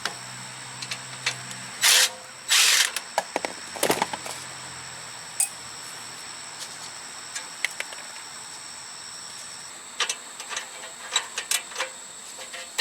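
Hand tools working the 10 mm bolts off an ATV's rear brake: scattered metallic clicks and clinks, with two louder bursts of noise about two and three seconds in and another run of clicks near the end.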